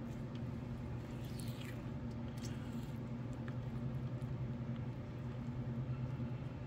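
A spatula stirring a thick ketchup-based sauce in a bowl, making soft wet squishing and light scraping sounds over a steady low hum.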